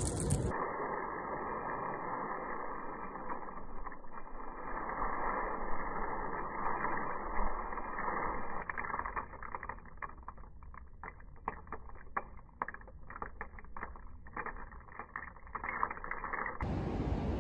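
A steady background hush, then from about halfway many light, irregular clicks and rattles as roasted coffee beans are stirred by hand in a bamboo basket.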